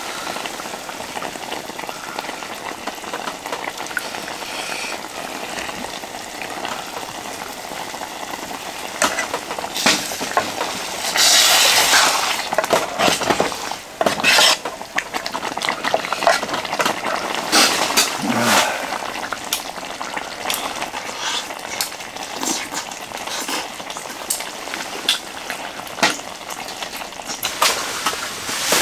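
Food sizzling in a pan or pot while a utensil stirs and clinks against it, with a louder rush of sizzling about eleven seconds in.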